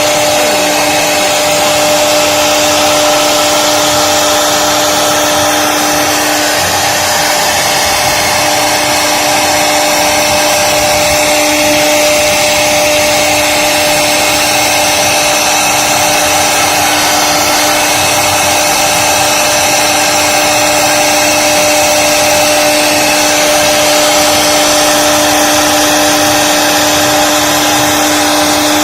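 CNC carving router's spindle running at a steady speed, a constant-pitched whine over a continuous rushing noise.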